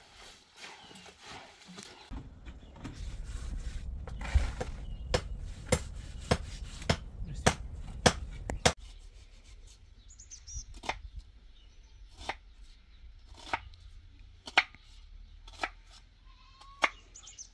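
A series of sharp knocks or strikes, coming every half second or so at first and more sparsely later. A low rumble runs under the first half and cuts off suddenly about nine seconds in.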